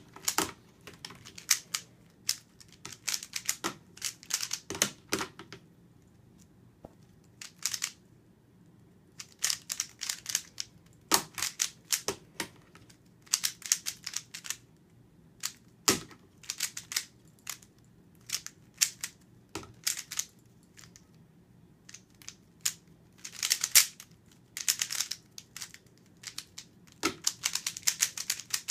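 A 3x3 speedcube being turned one-handed: quick runs of clacking plastic turns, broken by short pauses.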